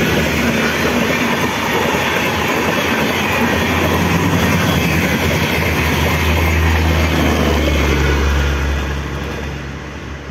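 Indian Railways LHB passenger coaches passing close by at over 100 km/h: a steady rush and rumble of wheels on rail. It fades about nine seconds in as the last coach goes by.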